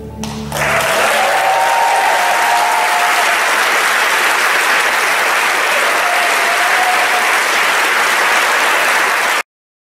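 Audience applauding at the end of a sung duet, breaking out just after the last sung note and cutting off abruptly near the end.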